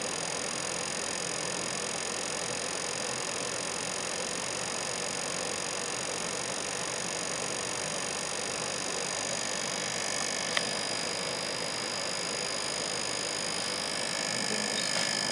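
Steady hiss with faint high-pitched tones from running lab equipment, with a single click about ten and a half seconds in.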